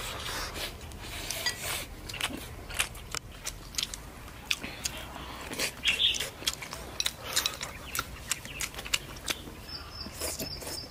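People eating at a table: chewing, with many light clicks of chopsticks against bowls and plates.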